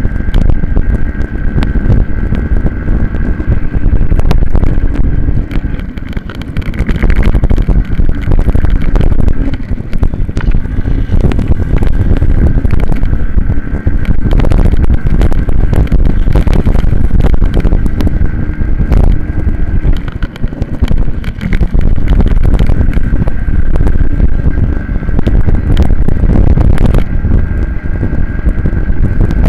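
Onboard sound of a racing minibike's engine running hard under throttle, with heavy wind buffeting on the camera microphone. The engine note eases briefly twice, about six seconds in and again around twenty seconds in.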